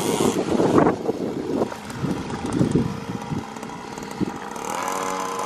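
Small children's motorbike engine revving as it rides off: loud for the first second, then fainter as it pulls away, with a steadier engine note returning near the end.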